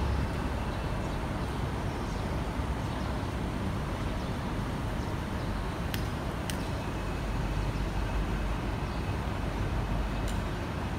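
Road traffic and a moving vehicle: a steady low rumble, with two sharp clicks about half a second apart midway through and another near the end.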